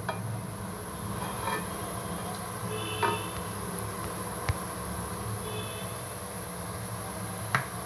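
Diced potatoes sizzling steadily as they shallow-fry in hot oil, over a low steady hum, with three light knocks of the stirring spoon against the pot.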